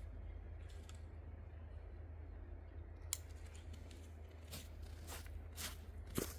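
Footsteps crunching in snow: after a steady low rumble, short crisp crunches begin about halfway through and repeat at a walking pace, roughly two a second.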